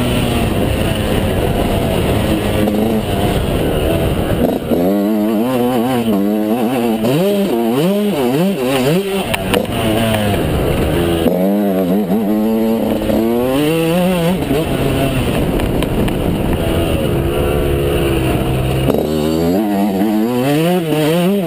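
Yamaha YZ125's 125 cc two-stroke single-cylinder engine under hard riding, revving up and dropping back many times in quick succession as the throttle is worked through corners and gear changes. It holds a steadier note at the start and again about two-thirds of the way in.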